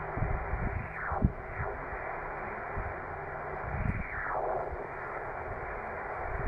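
Band noise from a Yaesu FT-450D shortwave transceiver's speaker: a steady hiss cut off sharply above the voice passband. Two whistles fall in pitch through it, about a second in and again about four seconds in.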